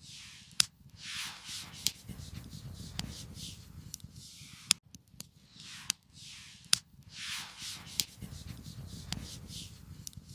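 Campfire wood crackling, with sharp pops every second or two over repeated swishing, rubbing noises.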